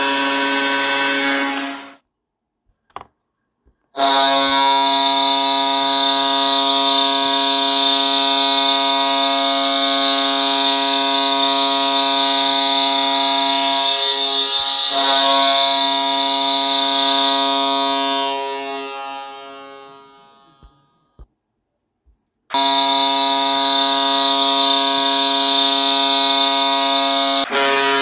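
Hockey goal horn recordings played back one after another, each a long, steady, deep horn blast. The first cuts off about two seconds in; after two clicks a second blast starts and holds before fading out; after a short silence a third begins.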